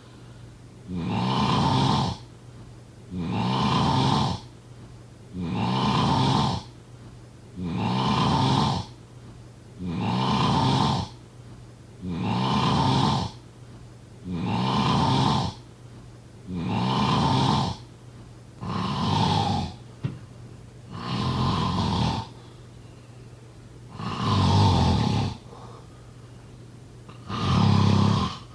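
A person snoring in a steady rhythm: about twelve snores, one roughly every two seconds, each lasting about a second, with slightly longer pauses between the last few.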